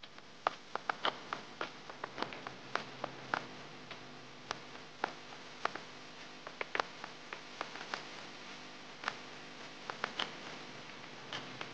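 Freshly baked chicken pot pie crackling: irregular sharp ticks and pops, a few a second, over a faint hiss.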